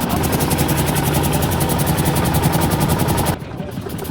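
Heavy construction machinery running, with a fast, even mechanical pounding of several strokes a second over the engine's drone. The pounding breaks off abruptly a little over three seconds in.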